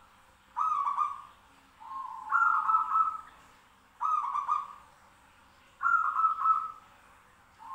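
Zebra doves (perkutut) cooing and answering one another: four soft, stuttering coo phrases about a second long, with short pauses between them.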